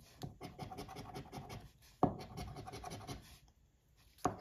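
A metal coin scratching the latex coating off a scratch-off lottery ticket in quick, rapid strokes, in two runs. A sharp tap comes about two seconds in, and another near the end.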